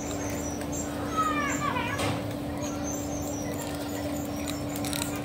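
A cat meows once about a second in, a short call falling in pitch, over a steady hum and faint high chirping.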